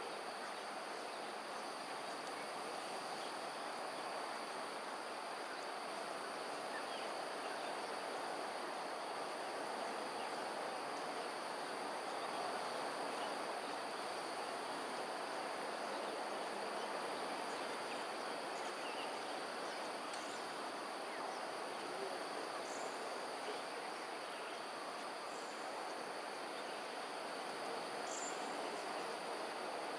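Steady outdoor ambience: an insect chorus holding two steady high-pitched tones over a steady broad hiss, with a few faint, short high chirps in the second half.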